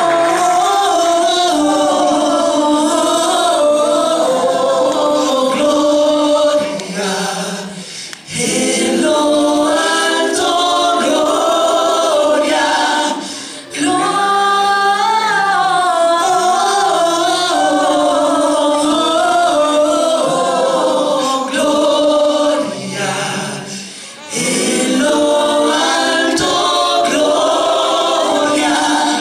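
Small vocal group, women's voices leading, singing a Christmas song together in harmony. The singing pauses briefly between phrases about a quarter, half and four-fifths of the way through.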